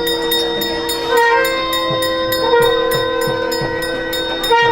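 Temple music: a nadaswaram holds long reed notes over a steady drone, changing pitch now and then, with regular drum and cymbal strokes keeping time.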